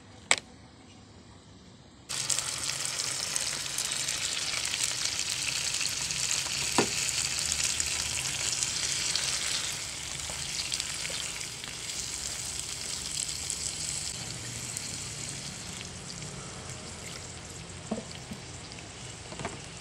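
Cockles frying in chilli paste in a pan, sizzling, with a spatula stirring and a few light knocks against the pan. The sizzle starts suddenly about two seconds in after a quiet moment and eases off somewhat about halfway through.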